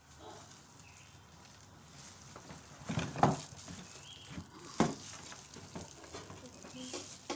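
Quiet background broken by a few sharp knocks and clatters: a cluster about three seconds in and a single sharp knock near five seconds.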